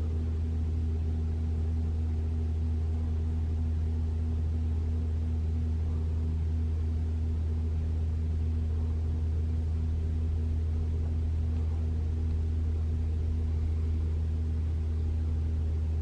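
2021 Toyota RAV4 Prime's heat pump humming steadily in EV mode, heard from inside the cabin. It is pretty loud, but it is not making the abnormal noise the owner was trying to reproduce, so it is running like normal.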